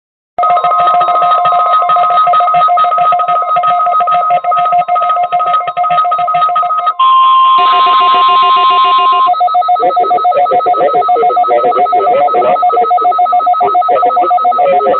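Electronic weather-radio alert tones: several steady tones that pulse rapidly, giving way for about two seconds near the middle to a single clean steady tone before the pulsing mix returns.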